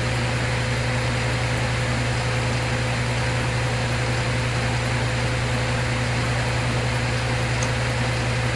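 Steady low electrical-sounding hum under a constant hiss, unchanging in level throughout.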